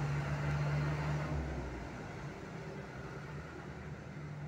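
Passing road traffic: motorbike and truck engines humming over tyre noise. It is loudest in the first second and a half as motorbikes pass close, then eases to a steadier, lower hum.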